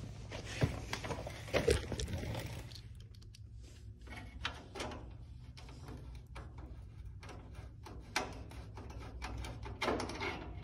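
Irregular small clicks and scrapes of a hand screwdriver and loose screws being worked at a pickup truck's headlight trim, with the sharpest clicks in the first two seconds, over a steady low hum.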